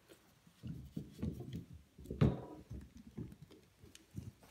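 Handling noises of a plastic Speedfit push-fit tee being twisted by hand to lock it onto copper pipe: soft irregular rubbing and knocks, with one sharp click about two seconds in.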